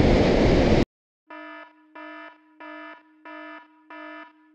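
Wind and surf noise on the microphone that cuts off abruptly under a second in, followed by an electronic alarm beep repeating evenly, about three beeps every two seconds.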